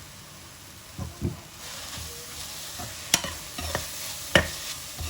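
Mashed tomato going into minced chicken frying in oil: a couple of soft thuds about a second in, then sizzling that builds, while a spoon stirring the mince knocks sharply against the pan a few times.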